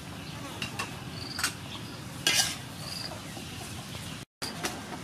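A utensil stirring and scraping lotus root in a frying pan, with light sizzling and a few clinks, the loudest about two seconds in. The sound drops out for a moment near the end.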